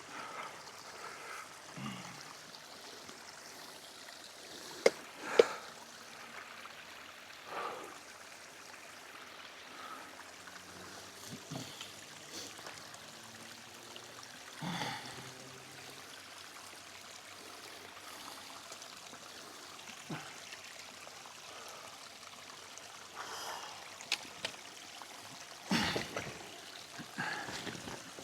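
A small stream trickling steadily, with a hiker's hard breaths every few seconds as he climbs a steep path. There are two sharp clicks about five seconds in.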